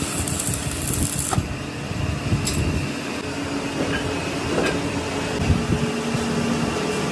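Steady mechanical noise of workshop machinery running, with a few sharp clicks or knocks.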